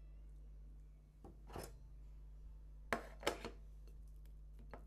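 Soft rustle of mizuna greens being pressed onto a mound of shredded cabbage, then about three seconds in, three sharp light clicks in quick succession and one more near the end as wooden chopsticks are handled against the plate, over a faint steady hum.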